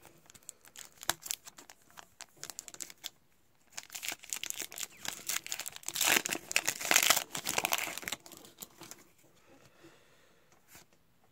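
Shiny wrapper of a trading-card pack crinkling and tearing as it is opened by hand. Scattered crackles come first, then the loudest, continuous crinkling from about four to eight seconds in, then it goes faint.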